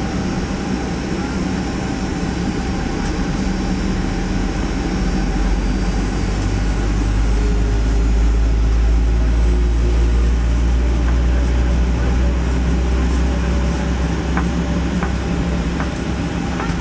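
Cabin noise of a Boeing 737-800 taxiing on its CFM56 engines: a steady low rumble and hum that grows louder for several seconds in the middle and then eases, with a few faint clicks near the end.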